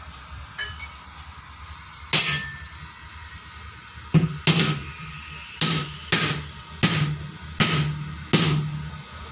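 Hammer blows on a 10.00 R20 truck tyre at the rim, breaking the bead loose. About eight sharp blows: one alone, then the rest at an uneven pace from about four seconds in.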